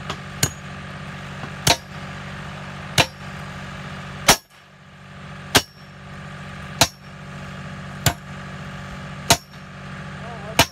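Spike maul driving a railroad spike by hand: about nine heavy steel-on-steel blows, roughly one every 1.3 s. Each is a sharp clang, some with a brief metallic ring. A steady engine hum runs underneath.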